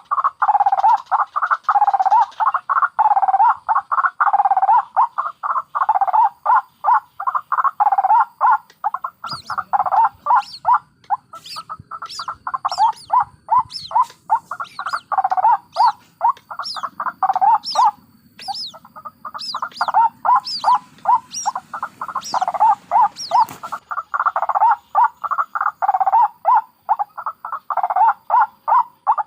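White-breasted waterhen (ruak-ruak) calling in a fast, continuous run of repeated croaking notes, about three to four a second. From about a third of the way in, for some fifteen seconds, high thin rising notes join in over a low rumble.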